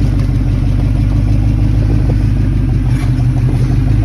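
Car engine running steadily and loudly.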